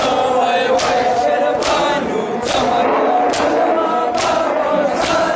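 Crowd of Shia mourners chanting a noha together, with a massed chest-beating slap (matam) landing in unison a little more than once a second.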